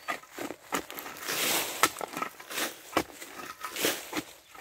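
A shovel digging into loose soil: repeated scraping and crunching strikes, about two or three a second, with longer scrapes in between.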